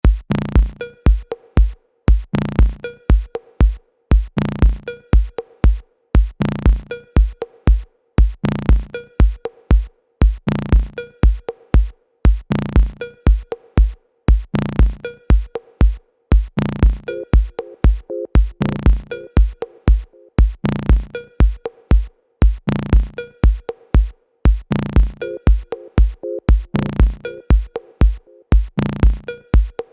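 Electronic music with a deep, steadily repeating beat and a held low tone under it.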